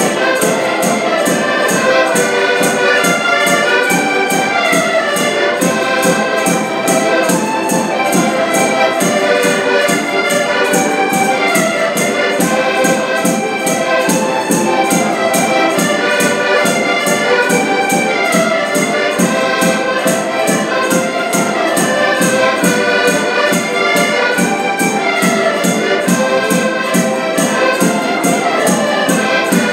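Several diatonic button accordions playing a lively folk tune together, over a drum struck in a fast, steady beat.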